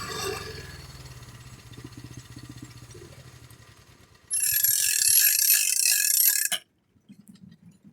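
Portable sawmill's engine winding down and slowing to a stop after the cut, its pulsing beat getting slower and fainter. About four seconds in, a loud hiss with a high whine runs for about two seconds and cuts off suddenly.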